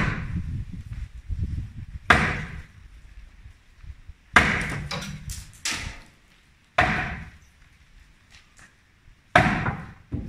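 Sledgehammer blows on a balcony being demolished: five heavy strikes about every two seconds, each ringing briefly, with a short clatter after the middle one.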